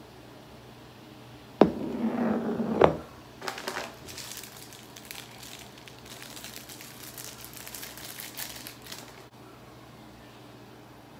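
Apple cider vinegar pouring into a bowl of bentonite healing clay for about a second, ending in a sharp knock, then about six seconds of fine crackling as the wet clay and vinegar are stirred with a plastic spoon. The vinegar makes the clay fizz.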